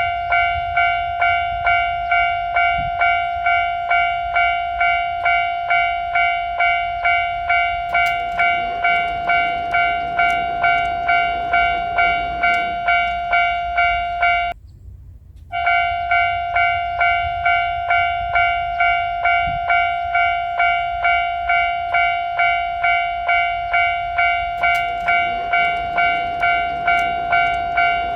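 Japanese level-crossing alarm bell ringing in a steady electronic clang, about two strikes a second, with a sudden break of about a second halfway through. A passing train's rumble and wheel clicks come in about a third of the way in and again near the end.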